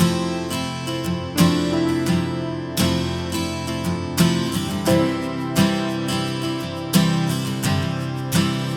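Background music: an upbeat acoustic guitar track with regular strummed chords.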